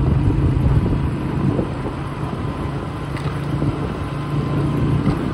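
Motorcycle running steadily at road speed, a low engine hum under wind buffeting the microphone.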